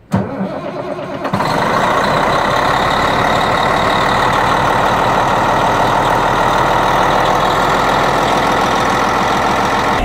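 Caterpillar D8T dozer's C15 six-cylinder diesel starting: a brief uneven turning-over, then it catches about a second and a half in and runs steadily.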